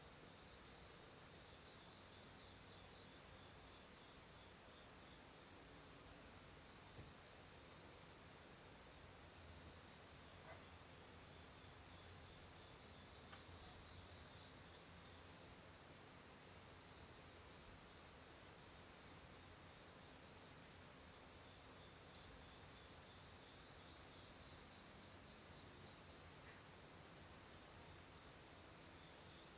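Faint, steady chorus of crickets chirring in a high, pulsing band.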